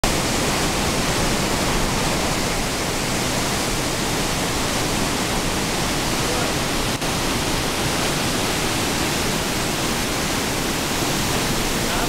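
A large waterfall, the Pailón del Diablo, pouring into its rocky gorge at close range: a loud, steady rush of falling water.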